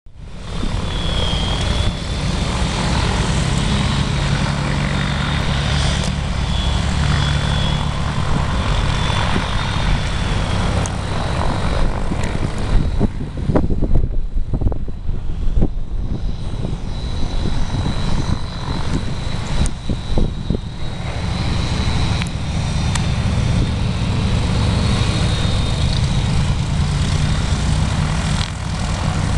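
Propeller roar of a light piston airplane taxiing, mostly a Cessna Skywagon. It runs steadily, then turns uneven with a few knocks for several seconds in the middle before going steady again.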